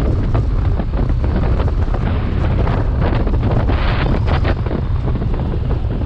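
Wind buffeting the microphone of a BMW R 1250 GS motorcycle riding downhill, over the low rumble of its boxer-twin engine, with a stronger gust about three to four and a half seconds in.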